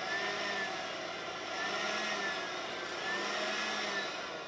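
Handheld electric blower running steadily, its whine gently swelling and easing about every second and a half.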